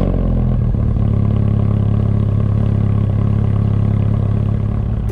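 Hyundai Getz with an aftermarket sport exhaust idling steadily, with a deep, even exhaust note.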